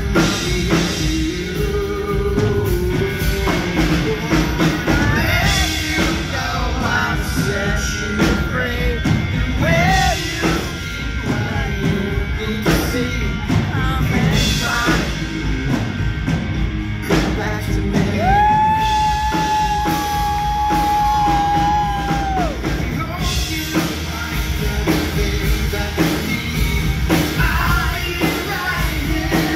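Live rock band: a man singing lead over electric guitar and drums. About 18 seconds in, a long note is held steady for about four seconds.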